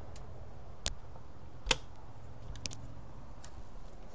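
A few short, sharp clicks and a knock from a fiberglass boat storage hatch and its stainless flush pull latch being handled, the loudest a little under two seconds in.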